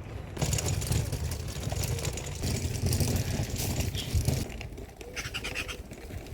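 Town street ambience: road traffic running past, with a low, uneven rumble.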